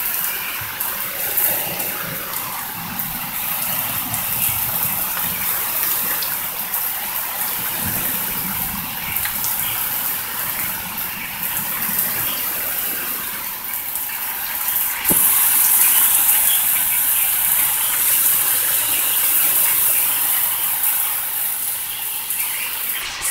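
Heavy rain and wind of a severe thunderstorm, a steady rushing noise. About two-thirds of the way through there is a click, and the rush turns louder and hissier from then on.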